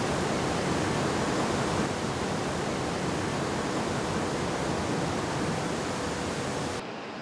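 Steady rushing noise with no clear pitch or rhythm, like industrial ambience or falling water. Near the end it suddenly turns muffled and quieter.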